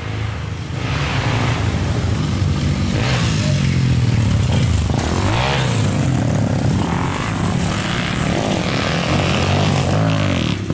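Several trail motorcycles riding past one after another on a dirt track, their engines revving up and down.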